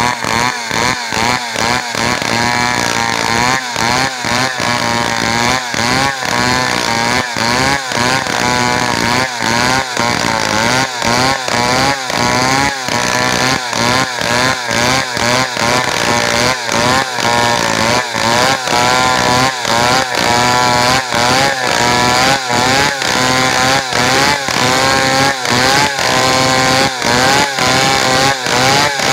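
Two-stroke chainsaw running under load, its chain ripping lengthwise through a squared log to saw out a plank. The engine note wavers up and down in a steady rhythm, about twice a second, as the cut goes on.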